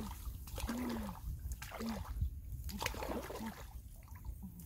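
Shallow water at a pond's edge splashing and sloshing in short bursts about once a second, with brief low gurgles between them.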